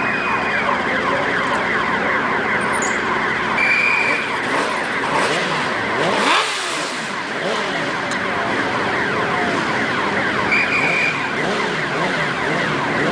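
Many racing motorcycle engines on the starting grid being revved over and over, their pitch sweeping up and down in overlapping runs. A few times one is held briefly on a high steady note.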